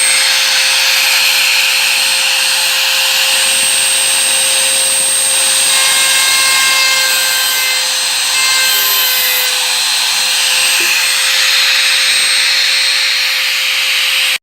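Drill press running steadily with a circular bit cutting into hardwood, giving a constant motor hum with a high whine over the grinding of the cut.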